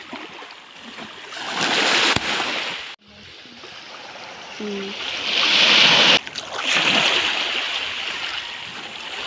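Sea water splashing and washing, the rushing sound swelling twice and cutting out abruptly for a moment about three seconds in.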